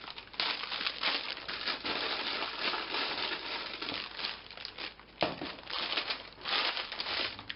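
Clear plastic bags full of small plastic building bricks crinkling and rustling as they are handled and lifted out of a tub, the loose pieces shifting inside. A sharp clack about five seconds in is the loudest moment.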